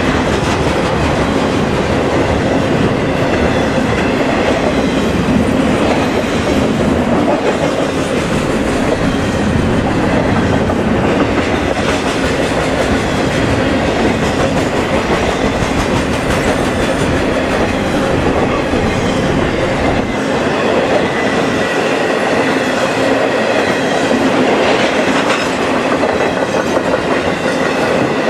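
Intermodal freight train cars, trailers on flatcars and containers, rolling steadily past close by: a continuous loud noise of steel wheels running on the rails.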